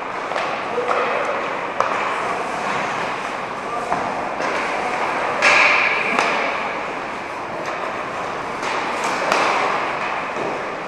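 Ice hockey skates scraping and carving on rink ice, with sharp clacks of sticks and pucks now and then. A brief, louder scraping hiss comes a little past halfway.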